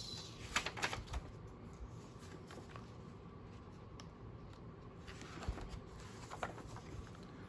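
Punched paper planner inserts being handled and put into a ring planner: light paper rustling with a few short clicks, the sharpest cluster about half a second to a second in.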